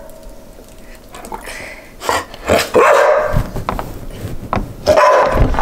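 A dog barking a few times, in short separate barks.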